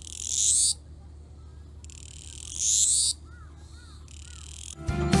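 Cicada calling in high buzzing phrases that swell and then cut off, three times, the second one longest. A few faint chirps follow the second phrase, and music comes in near the end.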